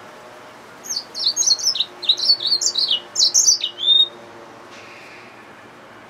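Yellow-fronted canary mule, a hybrid finch, singing one phrase of about three seconds: a rapid run of repeated down-sliding high notes that ends in a short rising note.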